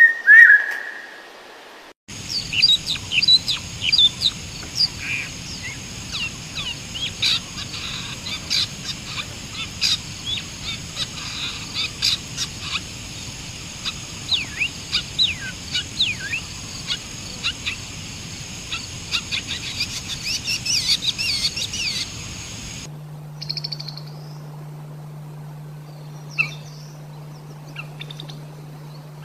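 Caged songbirds singing: a loud call at the start, then a dense stream of quick high chirps and trills for about twenty seconds, then sparser chirps over a steady low hum.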